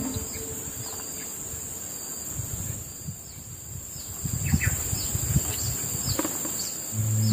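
Steady high-pitched drone of forest insects, with a few soft knocks and clinks of plates being handled between about four and six and a half seconds in.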